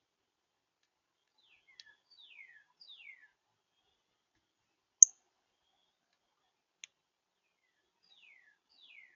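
A bird calling with short, high notes that slide downward, three in quick succession and then two more near the end, amid scattered sharp clicks, the loudest about five seconds in.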